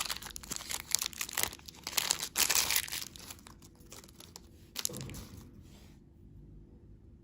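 Plastic candy packaging being crinkled and torn open, a dense crackle that thins out after about three seconds, with a soft thump near five seconds; the sound cuts off suddenly about six seconds in.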